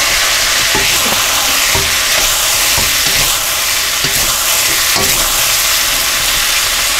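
Sliced steak, onions and mushrooms sizzling in a hot wok, stirred with a wooden spatula that scrapes through the food about once a second.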